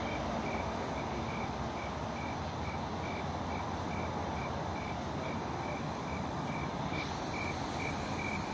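Steady distant rumble of a receding VIA Rail passenger train, with a short high chirp repeating a little more than twice a second.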